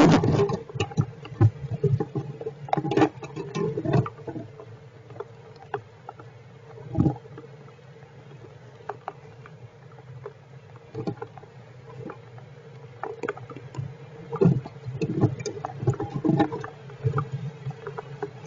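Heavy rain dripping and tapping irregularly on the shelter in scattered clusters of sharp taps and knocks, over a steady low hum.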